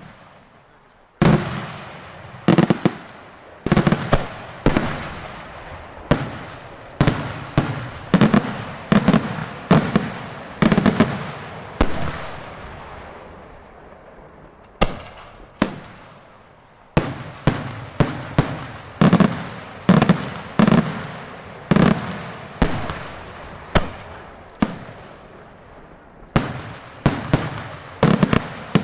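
Daytime fireworks: aerial shells bursting in a rapid series of loud bangs, each trailing off in an echo. The bangs come every half second to a second, thin out to a pause about halfway through, then pick up again in quick succession.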